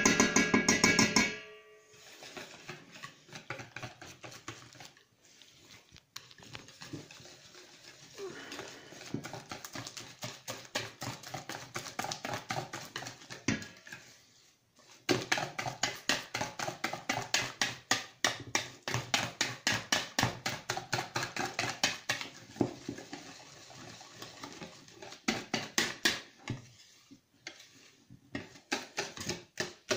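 Wire whisk beating crêpe batter in a plastic bowl, flour being worked into the liquid: fast, rhythmic clicking strokes in long runs with a couple of short pauses. A brief, loud clatter with ringing comes in the first second or so.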